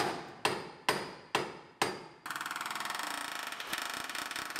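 Hammer blows on the sheet metal of a pickup's cab, five strikes about two a second, each ringing briefly: stress-relieving a kinked panel while a hydraulic ram holds it under tension. About halfway through the hammering stops abruptly and a steady, fast mechanical rattle takes over.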